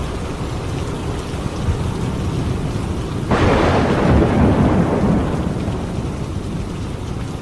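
Steady heavy rain with a thunderclap that cracks in suddenly a little over three seconds in and rumbles away over about two seconds.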